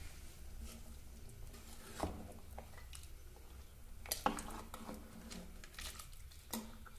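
Steel ladle stirring watery mutton curry in a pressure cooker, with a few knocks of the ladle against the pot, the loudest about four seconds in, over a faint steady low hum.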